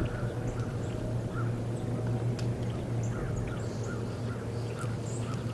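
Birds chirping in the woods, short repeated calls, over a steady low hum.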